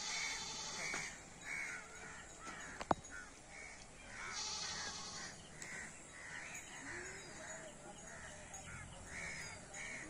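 Crows cawing over and over, with one sharp click about three seconds in.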